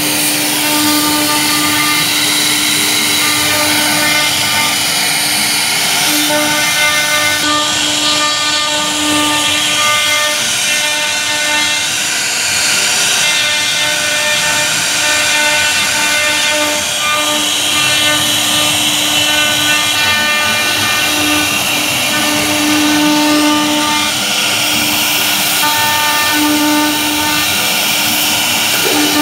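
CNC router spindle running with a steady whine while its router bit carves a relief into a wooden board; the tone swells and fades a little over time.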